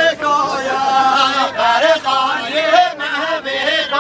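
A man singing a Kurdish folk song unaccompanied for a halay line dance, in long, wavering, ornamented phrases with short breaks for breath.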